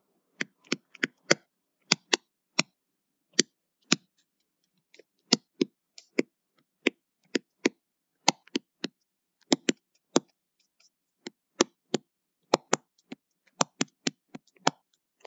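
Pen stylus tapping and clicking on a writing tablet during handwriting: a string of sharp, irregular clicks, about two or three a second, with a few brief pauses.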